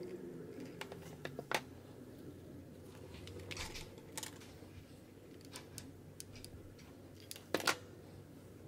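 Light clicks, taps and a brief rustle of a hot glue gun and craft pieces being handled on a tabletop, the loudest a sharp double clack near the end.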